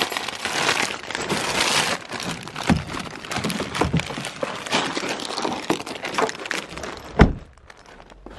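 Rustling and crinkling of a bag and its contents being handled, with scattered small clicks and knocks, then one loud thump near the end as a car door is shut.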